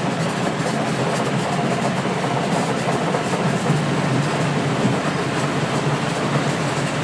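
Small boat's engine running steadily under way, a continuous rattling drone.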